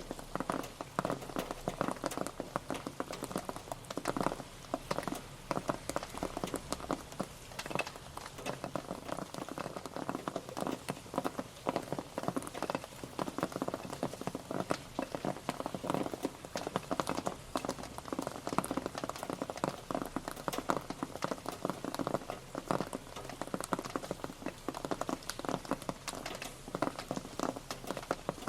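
Steady rain, with many separate drops pattering irregularly on a surface over a constant hiss.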